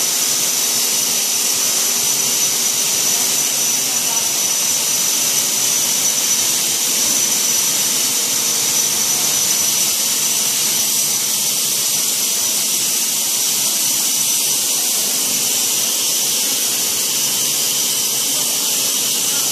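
Compressed-air plaster spray gun of a Wagner PC 830 plaster sprayer hissing steadily as it blows plaster onto a ceiling. A thin high whistle runs through the hiss, with a faint hum underneath.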